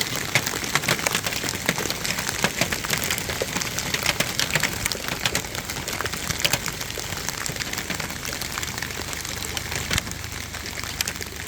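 Large hailstones pelting down in a dense, irregular clatter of sharp hits over a steady rain-like hiss.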